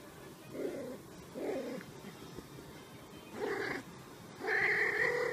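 Domestic cat meowing four times, short pitched calls spread over a few seconds, the last one longer and louder than the others.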